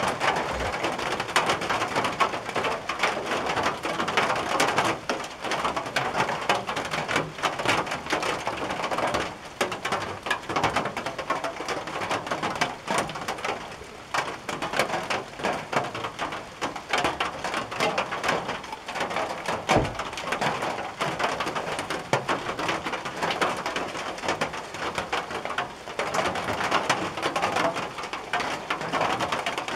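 Rain drumming on a tin roof: a dense, continuous patter of drops on the metal, swelling and easing a little in strength.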